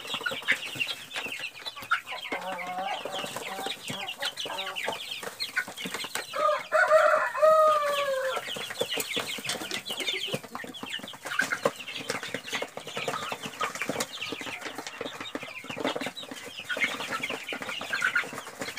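A pen full of young chicks peeping without pause, a dense chatter of short high cheeps as they feed. About six and a half seconds in, one bird gives a louder, lower call of about two seconds that falls in pitch.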